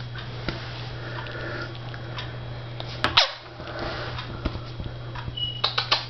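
Blue Indian ringneck parakeet quietly muttering to itself, with a quick falling whistle about three seconds in and louder, rapidly bending chatter starting near the end.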